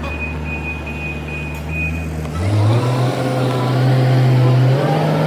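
Daewoo excavator's diesel engine running, its speed stepping up about two and a half seconds in and again near the end. A repeated high beep sounds over it and stops about two seconds in.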